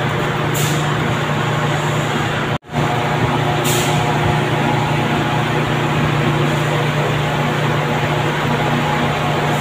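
Steady hum of sack-conveyor machinery running, with two short hisses of air. The sound cuts out for an instant a little over two seconds in.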